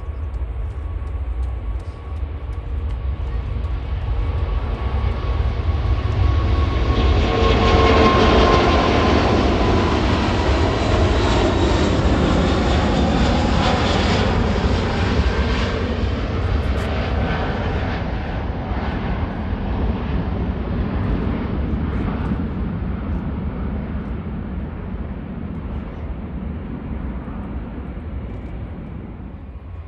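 Four-engine Airbus A380 jet taking off, its engine roar building to a peak about eight seconds in, with a whine that slides down in pitch as it passes, then slowly fading away.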